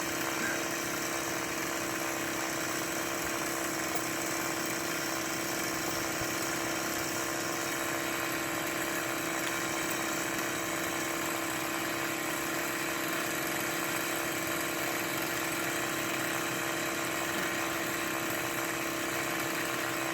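An engine running at a steady, unchanging speed, with a constant droning hum.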